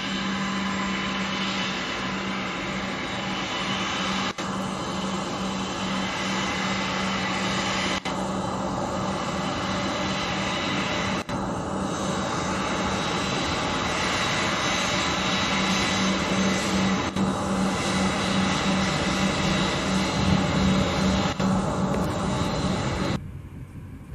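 Airbus A319's CFM56 turbofan engines running at taxi power: a steady jet whine over a low hum. It grows a little louder past the middle, then falls away abruptly about a second before the end.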